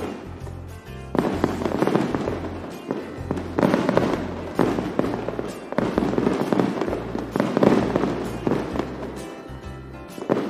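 Fireworks bursting and crackling in dense volleys starting about a second in, over background music with a stepping bass line.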